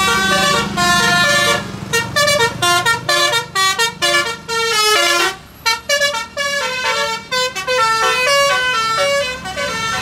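Tour bus's basuri telolet musical horn (DAV module) playing a fast tune of stepped notes that jump up and down, with a short break about halfway, over the bus engine's low running.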